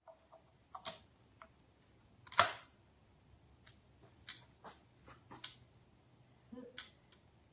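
Scattered faint clicks and knocks of handling noise, with one louder knock about two and a half seconds in.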